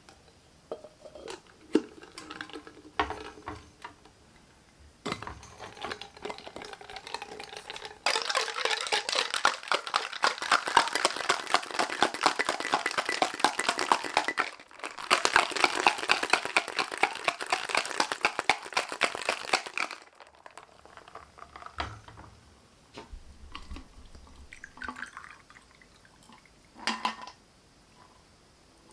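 Ice cubes rattling hard inside a stainless-steel Stanley cocktail shaker, shaken in two long runs of about six and five seconds with a brief break between. Before the shaking there are quieter clinks and short pours as the shaker is filled, and near the end the drink is poured into a steel cup.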